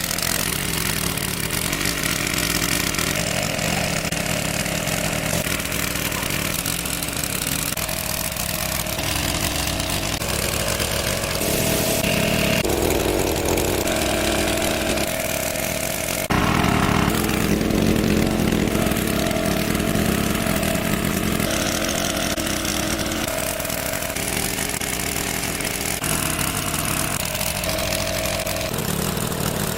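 Small gasoline engine of a large-capacity water pump running steadily. About halfway through, the sound jumps suddenly louder and runs on at the higher level.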